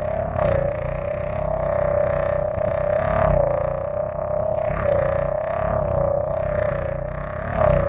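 Processed singing wine-glass tone used as a sci-fi alien-insect flyby: one steady ringing pitch that wavers slightly, over a low droning buzz, swelling in loudness several times.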